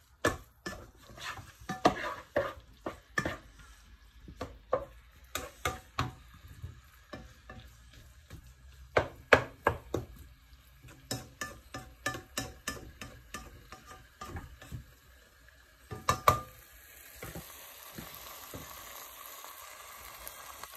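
A cooking utensil knocking and scraping irregularly against a nonstick pan as ground-chicken keema with potatoes is stirred. About three-quarters of the way in, the knocks stop and a steady sizzle of the keema frying carries on.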